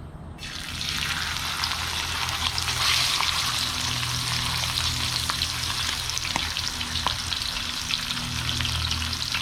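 Seasoned pompano frying in hot oil: the sizzle starts about half a second in as the fish goes into the pan, builds over the next two seconds, then holds steady with scattered pops and crackles.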